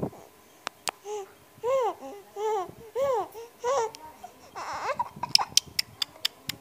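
Baby cooing: a string of four or five short, high coos that rise and fall in pitch, then a breathy burst and a quick run of sharp clicks near the end.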